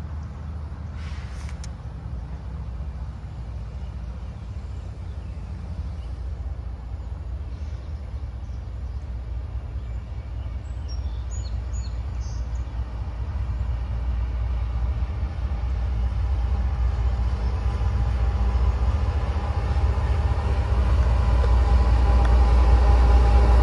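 CSX diesel freight locomotive approaching with its train, its low engine rumble growing steadily louder as it nears.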